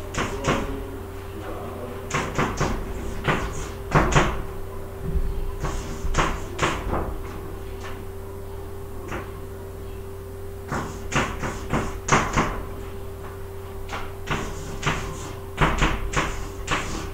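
Chalk on a blackboard: quick clusters of taps and short scratches as numbers and letters are written, with a pause of a few seconds midway.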